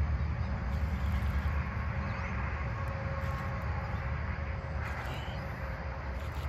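Steady low outdoor rumble with a faint steady hum and a few short high chirps.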